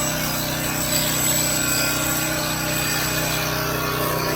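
Electric hair clipper running steadily with a continuous buzz.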